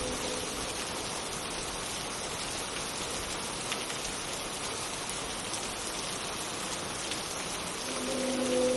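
Steady rain hiss. A synthesized multi-chime train horn chord dies away just at the start, and a new chord begins sounding about eight seconds in.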